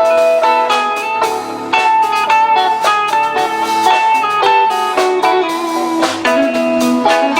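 A live rock band playing an instrumental passage, with a guitar leading and one long held note in the middle.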